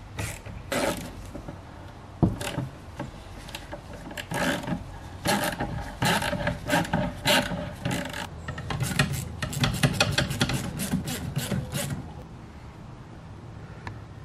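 Hands working plastic and rubber intake parts on a bench: irregular clicks, knocks and rubbing as the idle control valve, hoses and bracket are handled and fitted. A dense run of quick rasping clicks comes about two-thirds of the way in.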